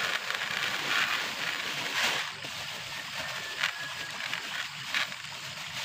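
Granular fertilizer pouring from a plastic bag into a plastic bucket of water, a hissing patter for the first two seconds or so. Then the plastic bag crinkles with a few short ticks as it is handled.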